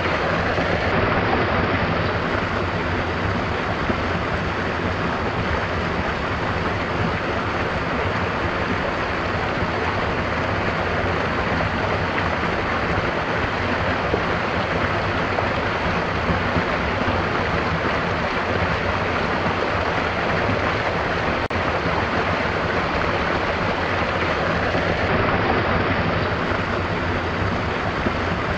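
Stream water running, a steady rush that does not let up.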